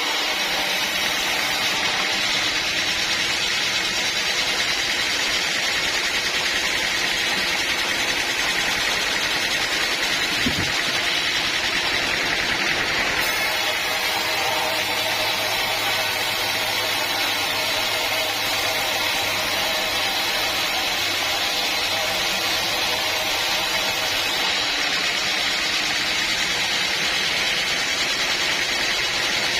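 Bandsaw mill running steadily: a continuous machine drone with a high, even whine.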